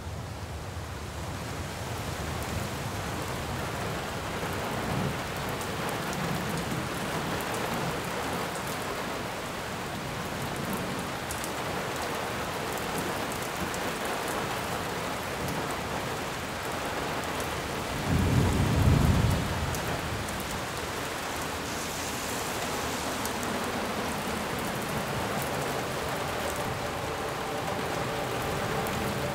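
Steady rain falling, with one low rumble of thunder about two-thirds of the way through.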